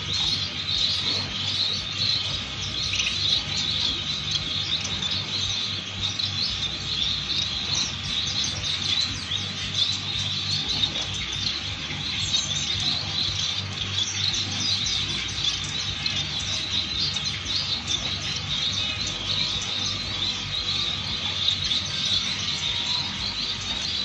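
Many caged finches, zebra finches among them, chirping together in a dense, unbroken chorus of short high calls, over a low steady hum.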